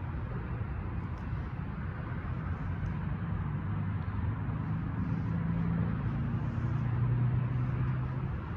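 Low, steady rumble of a vehicle engine somewhere out of sight, growing a little louder about five to seven seconds in.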